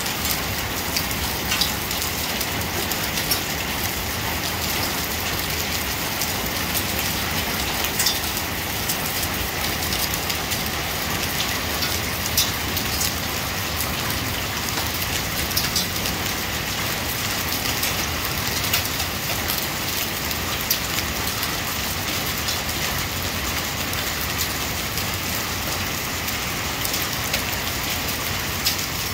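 Steady rain with hail falling on a lawn and paving: an even hiss with scattered sharp ticks of hailstone strikes.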